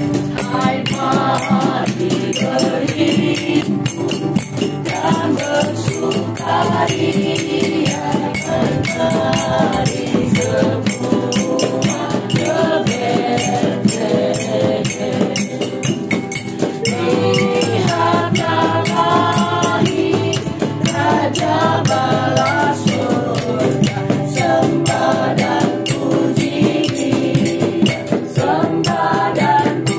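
A group of voices singing a song together over steady rattling hand percussion.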